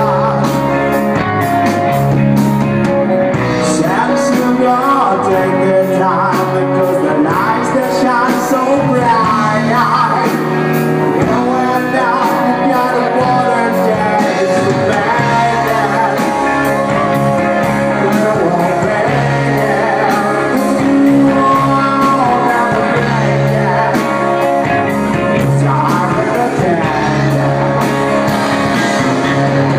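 A live rock band playing loudly, with electric guitars, bass guitar and a male lead singer.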